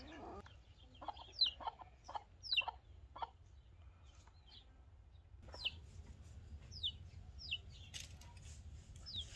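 Free-range chickens clucking, with a series of short, high-pitched, falling calls every second or so over a faint low rumble.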